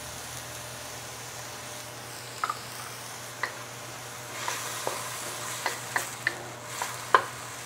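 Chopped bok choy and garlic sizzling in oil in a wok, a steady hiss. From about two seconds in, a wooden spatula stirs the greens with scattered clicks and scrapes against the pan, busiest past the middle.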